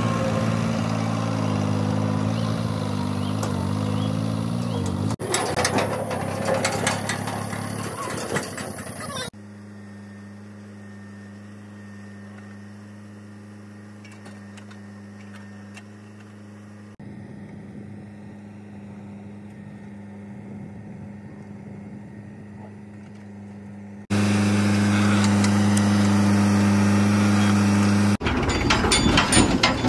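Mahindra diesel tractor engines running steadily across a string of short clips that cut abruptly, quieter in the middle and loud again near the end. In places a backhoe bucket clatters and scrapes through soil.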